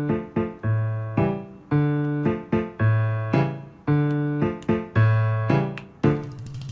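Background piano music: a bouncy, repeating pattern of struck chords over a bass that alternates between two low notes.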